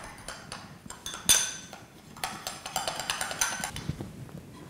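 Metal spoon clinking and scraping against a small glass bowl as batter is stirred into lemon juice, with one sharp knock about a second in.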